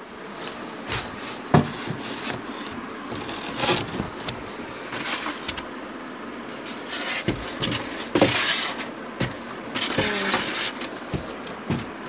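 Cardboard box and foam packing being handled: irregular scraping and rubbing with scattered knocks and bumps, louder bursts of rustling about eight and ten seconds in.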